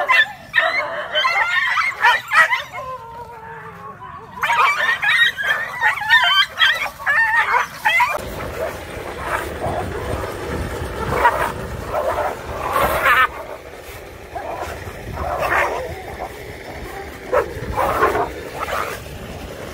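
Dogs fighting, with repeated yelping and barking. About 8 seconds in, the background changes to a noisier, rumbling one, and short cries keep coming every second or two.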